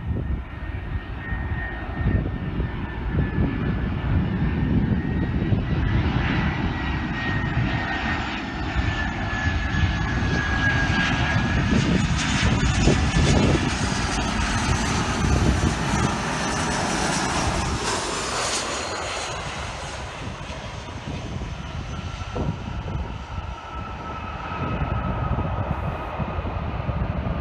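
Twin-engine Airbus A320-family jet airliner on final approach and landing, its jet engines giving a steady rumble with a thin high whine that slides slowly down in pitch. The sound is brightest and fullest about halfway through as the plane passes low, then eases as it touches down and rolls out.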